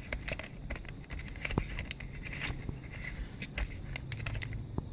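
Small clicks and scrapes of fingers turning a brass SMA connector nut, screwing an antenna extension cable onto a video receiver module's antenna jack.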